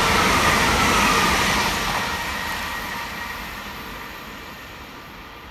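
Two coupled Class 387 Electrostar electric multiple units running through the station at speed and moving away. A steady whine drifts slightly down in pitch while the rolling noise fades over the last few seconds.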